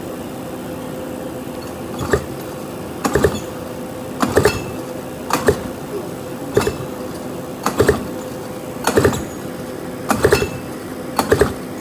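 Recoil starter pulled over and over to crank a Yamaha YT125 two-stroke engine fitted with a DT175 cylinder, about once a second, each pull a short clatter, for a compression test. A steady hum runs underneath.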